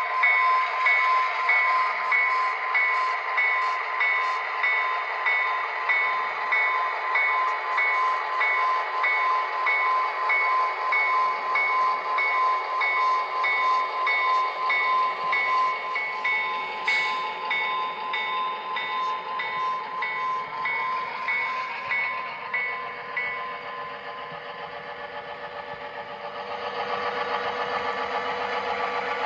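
Sound-equipped model diesel locomotives (Great Northern F-units) running, with a pulsing engine sound from their onboard speakers and a rapid repeating high ring over it that fades out a little over 20 seconds in. Near the end, a second locomotive's engine sound rises louder and lower.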